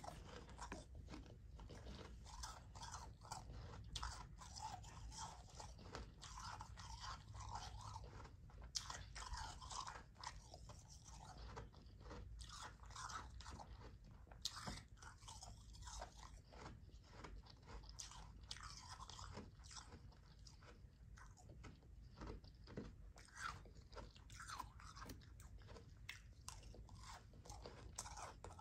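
Close-miked chewing of soft, powdery ice: a steady run of faint, fine crunches and crackles.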